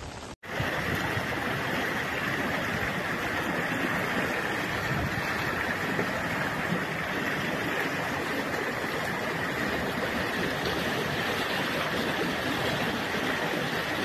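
Floodwater rushing through a street, a steady, loud rushing noise that starts abruptly after a brief break about half a second in.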